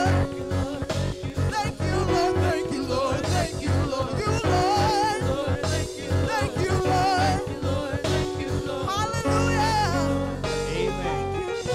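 Live church praise music: singers with vibrato in their voices over band accompaniment with held low notes and a steady beat.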